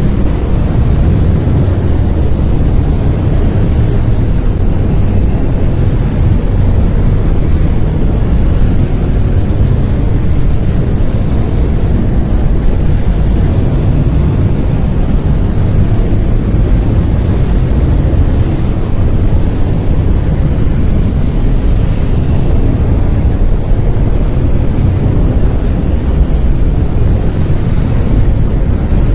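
Continuous brown noise: a steady, deep rumbling hiss, strongest in the bass and fading toward the treble, with no changes.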